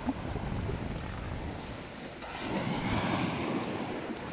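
Shallow sea waves washing up over the sand, with one wave of surf swelling in about two seconds in, and wind buffeting the microphone.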